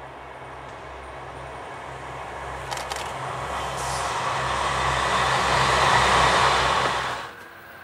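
Red diesel multiple unit passing close by: a steady low diesel engine drone under rail and wheel noise that grows louder as the train approaches, with a few sharp clicks about three seconds in. The sound cuts off abruptly near the end.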